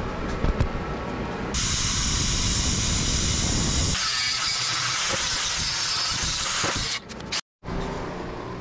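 Plasma cutter at 50 amps cutting through quarter-inch steel plate: a loud, steady hiss of the arc and air that starts about a second and a half in and lasts about five seconds. It cuts off suddenly near the end.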